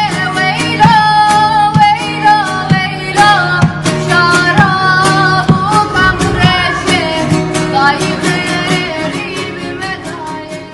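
Kurdish folk song: a voice sings an ornamented, gliding melody over plucked strings and a steady low drone, the music fading out near the end.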